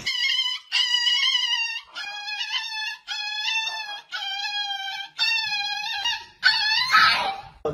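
Toy poodle crying out in a string of about seven high-pitched, drawn-out wails while its claws are clipped, ending in a rougher, hoarser cry near the end.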